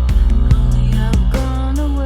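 Music: a song with a heavy sustained bass, held pitched notes and a steady beat of about two strikes a second.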